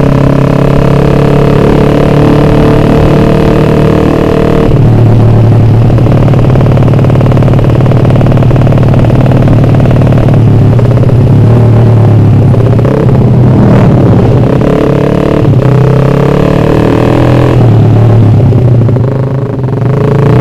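Suzuki Satria F150's ported, carburetted 150 cc single-cylinder four-stroke engine running very loud through an aftermarket road-race exhaust while riding. It holds steady revs for about four and a half seconds, then changes sharply and rises and falls with the throttle, with short dips in the second half.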